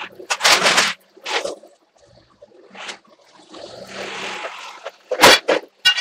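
Shop noises of an old sit-down forklift being moved out through an open overhead door: noisy rattles and scrapes in the first second, a steady mechanical whirr about three to five seconds in, then a loud metallic clank followed by a shorter knock near the end.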